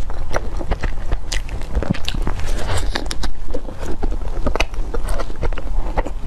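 Chewing a soft chilled cream bun with blueberry filling: a stream of irregular wet mouth clicks and smacks.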